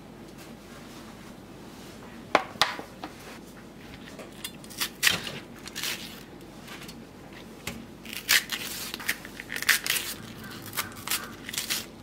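Fresh bok choy being split in half by hand: a run of crisp snaps and tearing sounds from the stalks, densest in the second half, after two sharp clicks a couple of seconds in.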